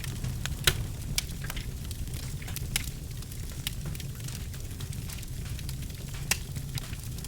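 Birchwood fire burning in a fireplace: a steady low rumble of flames with sharp, irregular crackles and pops, two loud pops standing out, one near the start and one near the end.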